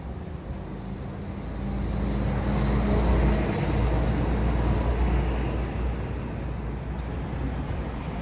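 A motor vehicle passing by: a low engine rumble that swells for about two seconds, peaks in the middle, then slowly fades.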